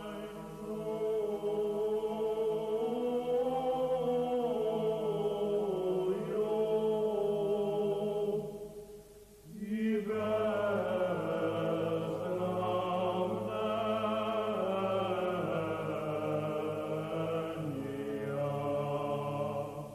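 Slow chant sung by low voices over a held drone note, the melody moving gently above it. The singing breaks off for about a second near the middle, then a new phrase begins.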